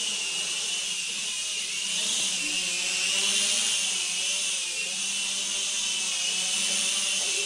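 MakeTheOne M2 (Mould King Super-F) mini quadcopter in flight, its small motors and propellers giving a steady high-pitched whine that wavers a little in pitch as it manoeuvres.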